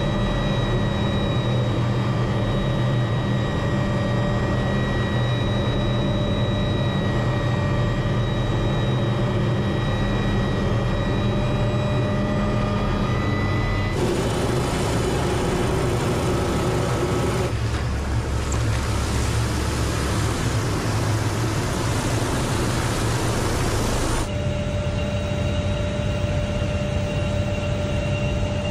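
Helicopter in flight heard from inside the cabin: a steady turbine whine over the low thrum of the rotor. About halfway through, the sound turns to a rougher, noisier rush for around ten seconds, then the steady whine comes back.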